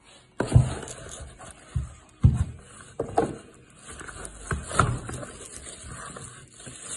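Cardboard boxes being handled and set down on a wooden table: a string of dull knocks and scrapes, the sharpest about half a second in and just after two seconds.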